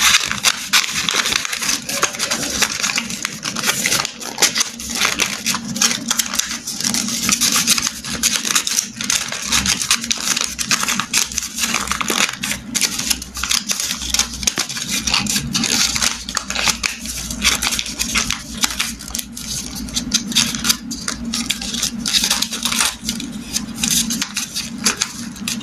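Origami paper being folded, creased and tucked by hand close to the microphone: continuous rustling and crinkling of paper with many small crackles.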